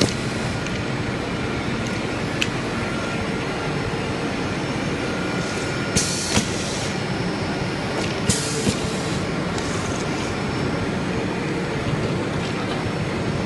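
Automatic bottle capping press at work over a steady machine hum, with a click about two seconds in and two pairs of short air hisses from its pneumatic cylinders, about six and eight seconds in.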